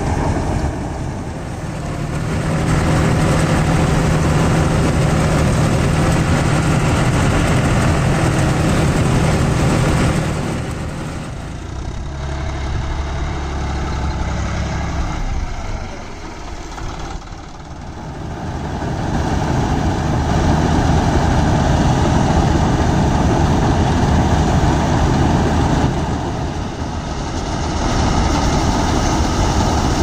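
Tractor-driven paddy combine harvester (Standard TSC 513 on a John Deere 5310) running steadily under load: diesel engine and threshing machinery together. The sound shifts in level a few times.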